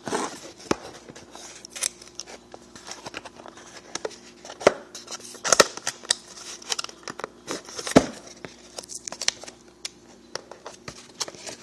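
A small cardboard parts box and its packaging being opened and handled by hand: irregular rustling, scraping and sharp clicks, loudest a little past the middle.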